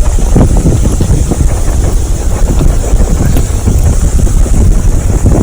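Wind buffeting the microphone as a loud, steady low rumble, with a few faint crackles from a wood campfire.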